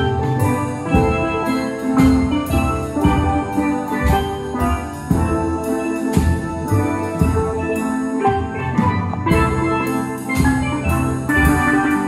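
A steel band of several steel pans played together with mallets, ringing out a tune in chords over a steady beat.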